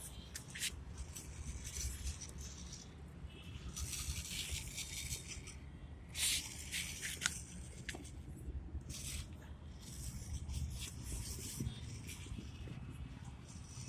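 Small radio-controlled cars driving over rough ground: irregular bursts of scraping hiss from the tyres, a second or less each, over a low rumble.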